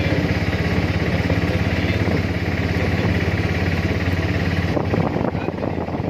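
Small motorcycle engine running steadily under way, a fast even pulse with a low hum, getting a little quieter and rougher near the end.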